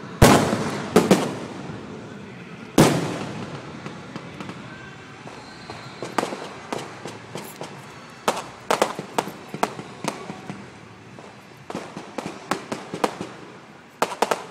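Aerial fireworks going off: three big booms in the first three seconds, each trailing off in a long echo, then clusters of quicker, lighter bangs and crackles from about six seconds in.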